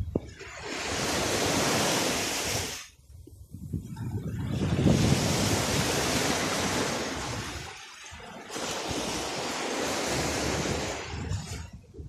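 Small sea waves breaking and washing up a sandy shore: three surges of hiss with short lulls between.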